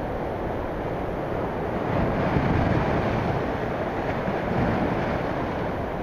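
Typhoon swell breaking and washing in as a steady rush of surf. It swells louder about two seconds in and eases off after about five.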